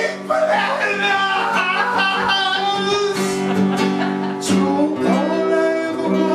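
A song: a man singing over guitar accompaniment.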